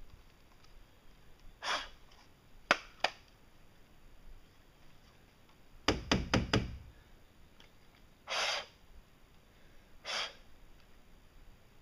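Hand handling of a cordless angle grinder and its accessories, the grinder not running: two sharp clicks, then a quick run of four or five knocks about six seconds in, with a few short hisses in between.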